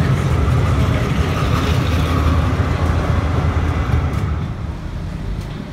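A city tram rolls past close by on street rails with a loud, low rumble. The rumble fades away about four seconds in as the tram moves off.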